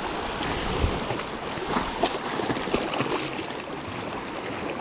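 Sea surf washing and splashing over shoreline rocks: a steady rush of moving water.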